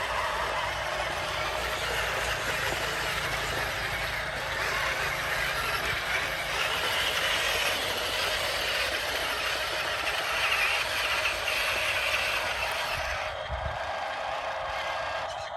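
Remote-control model construction vehicle running: a steady mechanical whir of small motors and gears with a constant tone, easing off near the end.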